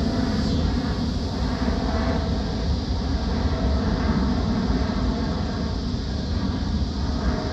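Steady low rumble of a jet airliner's engines as it climbs away after takeoff.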